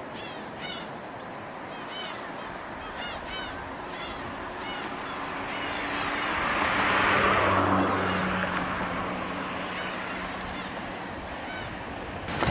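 Birds call in quick repeated chirps through the first half. A rushing noise with a low steady hum beneath it swells to its loudest around the middle, then fades. Right at the end a cut brings in loud wind buffeting on the microphone.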